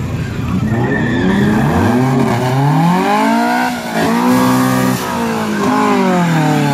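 Car engine revving hard during a burnout, with tyres squealing. The revs climb over the first few seconds, drop sharply just before the middle, hold high, dip again, then rise and fall away near the end.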